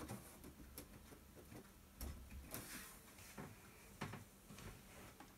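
Faint, scattered knocks and clicks, a handful over a few seconds, from hands handling the plastic case of a Macintosh Plus and things around it.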